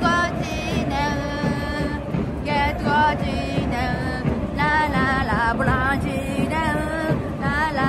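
Music with singing: a voice holding notes that waver and slide, at a steady level.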